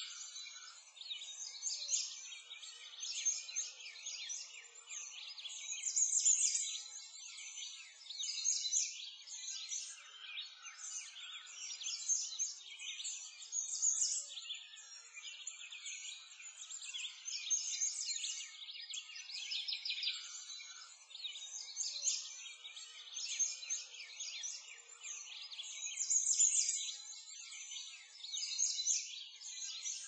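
A dense chorus of small songbirds chirping and twittering continuously, the calls high-pitched, with louder phrases coming and going.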